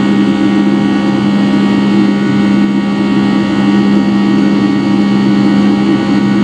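Rolls-Royce RB211-535E4B turbofan of a Boeing 757-300 running steadily at climb power, heard from inside the cabin: a strong low hum with a comb of steady higher tones, the engine's buzz-saw drone.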